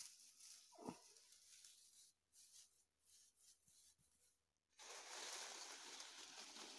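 Faint rustling of grass and leafy plant stems being handled, which gets louder and steadier about two-thirds of the way through, with a single soft knock about a second in.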